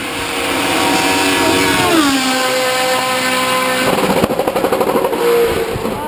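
Hill-climb race car engine at high revs passing close; its pitch drops sharply about two seconds in, then the exhaust turns to a rapid pulsing about four seconds in and fades near the end.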